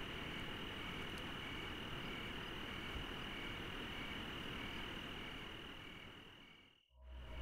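Night insect chorus: a steady high cricket trill with softer chirps repeating about twice a second over a faint hiss, fading out near the end as music comes in.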